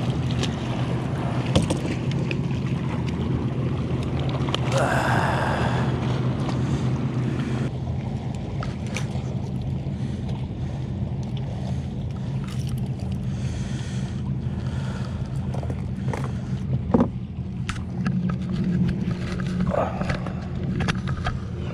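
A freshwater drum being handled in a fishing kayak: scattered knocks and clicks of the fish, pliers and lip grip against the hull and measuring board, with a brief scuffle about five seconds in, over a steady low rumble.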